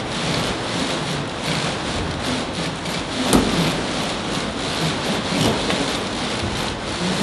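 Full-scale traditional timber-frame wooden houses shaken on an earthquake shaking table: a continuous rumbling rattle full of creaks and crackles from the timber frame and walls, with a sharp crack about three seconds in and another at the end.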